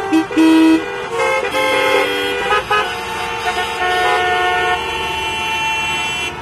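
Many vehicle horns honking at once in city traffic: overlapping blasts at different pitches, some short and some held for several seconds.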